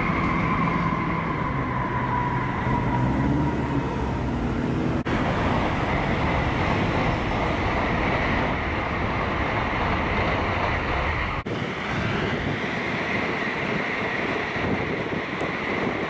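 Train running past with a steady rumble and rail noise. The sound breaks off abruptly about five seconds in and again about eleven seconds in, where shots are joined.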